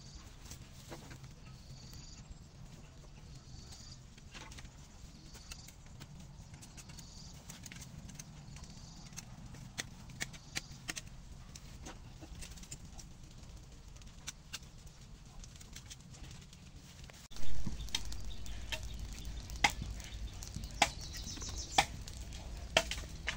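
A small fire of dry bamboo leaves and twigs crackles with scattered sharp pops, over faint repeated bird chirps. About two-thirds of the way through, a low rumble of handling noise comes in and stays.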